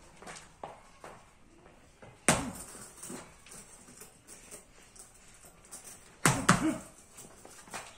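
Gloved punches landing on a hanging stack of rubber tyres used as a heavy bag: lighter knocks, with two hard hits about two seconds in and a cluster of them about six seconds in, echoing off bare concrete.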